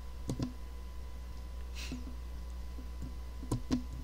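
A few sharp computer-mouse clicks, a pair about a third of a second in and another pair near the end, made while scrolling a document, over a steady low hum.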